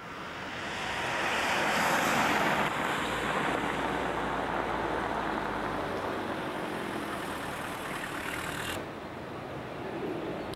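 Road traffic noise: a vehicle passes close by, building to its loudest about two seconds in and then slowly fading. The sound changes abruptly near the end.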